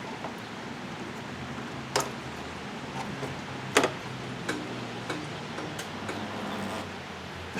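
A few scattered sharp clicks and knocks of metal handling as the oil filter on a John Deere D105 lawn tractor is worked loose, over a low steady hum.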